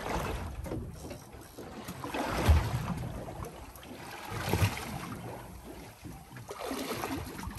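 Sea water lapping and slapping against the hull of a small fishing boat, with wind on the microphone, and two low thumps about two and a half and four and a half seconds in.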